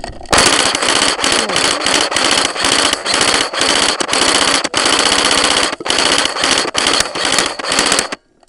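Tokyo Marui G3 electric airsoft rifle firing on full auto right at the microphone: a long, loud run of its gearbox cycling, broken by a few brief pauses, that stops suddenly near the end.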